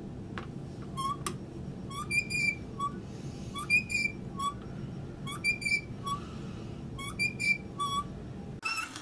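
Hand-cranked drill with a 1-inch bit boring into a cigar box: a steady low grinding as the bit cuts, with short high squeaks coming roughly twice a second as it turns. The grinding stops near the end.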